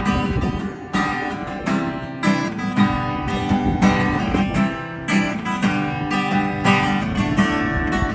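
Acoustic guitar strummed in a steady rhythm of about two strokes a second, chords ringing between the strokes, with a low wind rumble on the microphone.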